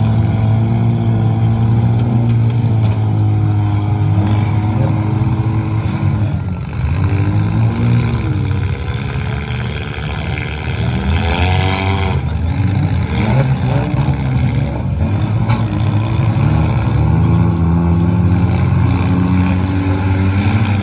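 Several demolition derby cars' engines running and revving hard together, their pitch rising and falling as drivers push and ram. The sharpest rev climbs just past the middle.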